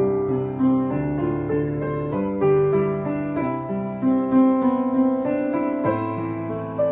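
Background piano music, a slow melody of sustained notes over a bass line.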